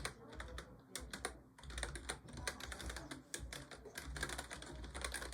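Keys of a computer keyboard being typed on rapidly, a quick irregular run of clicks.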